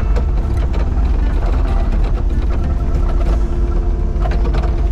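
Excavator engine running with a steady, heavy low rumble and a steady tone above it, with several sharp metallic knocks and clanks from the working machine scattered through.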